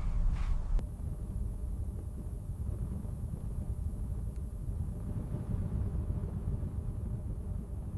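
A steady low rumble with a faint high hiss, starting with an abrupt change about a second in.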